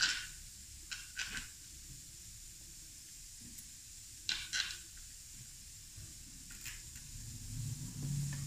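Light clicks and scrapes of small metal parts being handled at a workbench, a few separate clicks over a steady faint hiss.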